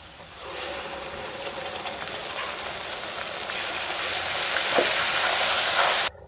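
Wet ground masala paste of mint, coriander, ginger and garlic sizzling as it hits hot oil and fried onions in a kadai, stirred in with a spoon. The sizzle starts about half a second in, grows louder, and cuts off suddenly near the end.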